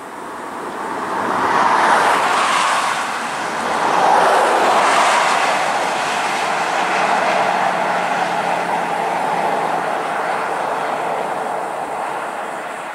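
Light vehicles, a van and a ute towing a boat trailer, passing close on a highway: tyre and engine noise swelling twice, about two and about four seconds in, then a steadier traffic noise that eases off slightly near the end.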